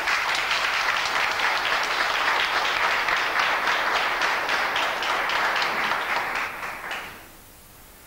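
Audience applauding, many hands clapping at once; the clapping fades out about seven seconds in, leaving quiet room tone.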